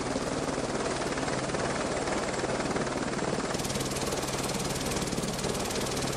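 Helicopter running steadily, its engine and rotor making a continuous loud drone. The sound turns brighter about three and a half seconds in.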